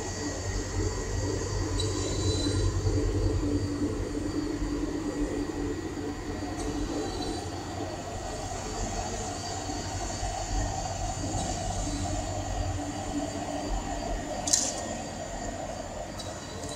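Cryostat running with a steady low hum and a faint high whine, with one short click near the end.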